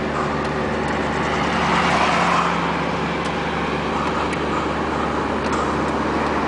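Steady road and engine noise of a moving car heard from inside the cabin, swelling briefly about two seconds in.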